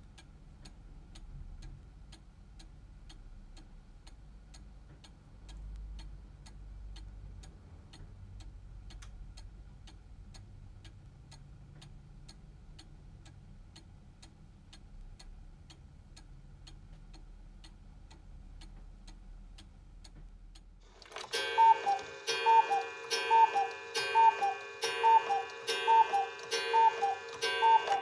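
Black Forest 1-day mechanical cuckoo clock ticking steadily, then, about three quarters of the way through, striking with its cuckoo call: a pair of falling whistled notes repeated about ten times, much louder than the ticking.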